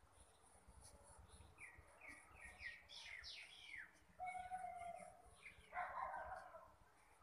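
Faint background birdsong: a quick run of short falling chirps, then a held whistled note about four seconds in, and a harsher call near the end.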